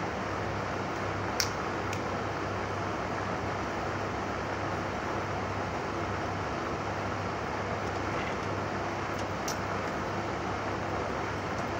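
Steady background hum and hiss, with a faint click about a second and a half in and another near the end.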